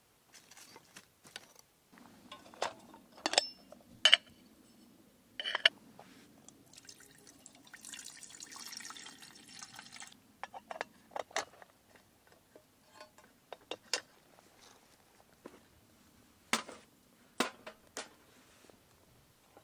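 Water poured from a bottle into an iron kettle for a couple of seconds, amid scattered sharp clicks and knocks of camp cooking gear being handled. Near the end, metal clinks as a wire grill grate is set over the wood fire.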